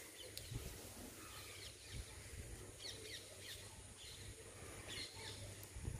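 Faint bird chirps, short falling notes in a few small clusters, over a quiet outdoor background of hiss and low rumble.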